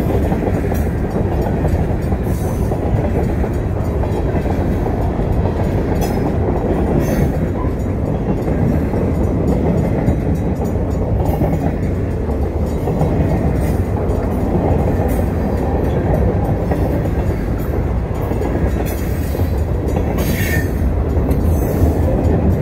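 Freight train cars rolling past at close range: a steady rumble of steel wheels on the rails, with scattered sharp clacks.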